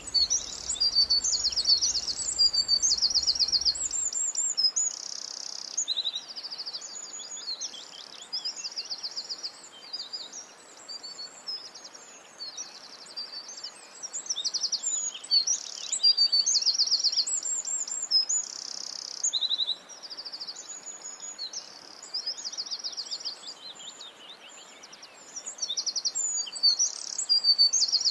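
Many birds calling and singing at once: overlapping high chirps, whistles and fast rattling trills in a dense, continuous chorus.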